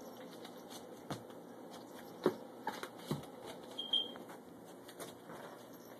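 A few soft thumps and taps spread over about two seconds, the loudest about two seconds in, from a miniature dachshund puppy jumping on couch cushions after a balloon. A brief high squeak follows about four seconds in.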